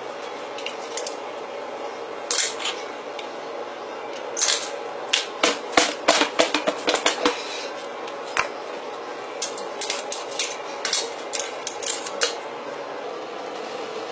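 Sharp clinks and clanks of steel on steel as a hot steel blank is handled in a press die fixture. They come in a rapid cluster around the middle, with scattered ones later, over a steady hum.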